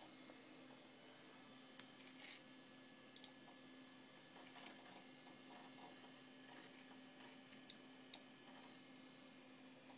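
Near silence: the Power Macintosh 7100 running while it boots, a faint steady hum with a few faint ticks, one about two seconds in and one near the end.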